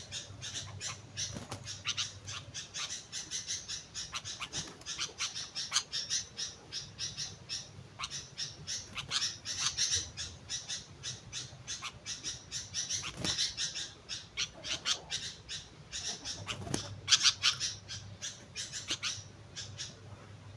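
Sooty-headed bulbul (kutilang) in full voice, giving a long run of rapid, sharp, chattering notes with hardly a pause. The calling stops just before the end.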